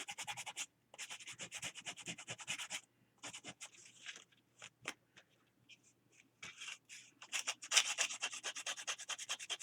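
Sandpaper rubbing along the edges of a thick stack of collaged paper pages, quick back-and-forth strokes several to the second. The strokes go in runs, thin out and slow from about three seconds in, then come fast again from about six and a half seconds.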